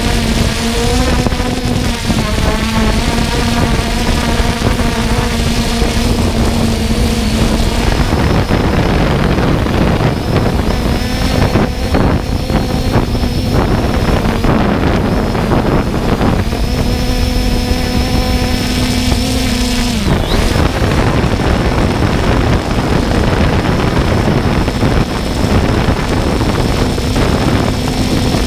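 3DR Solo quadcopter's electric motors and propellers droning, heard up close from the GoPro it carries, with wind noise on the microphone. The pitch of the hum shifts as the drone manoeuvres and drops about two thirds of the way through.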